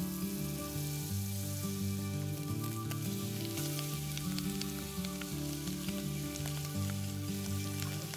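Chopped onion and sausage sizzling in hot fat in a cast-iron camp oven over a campfire, a steady frying hiss with small crackles, under soft background music with sustained low notes.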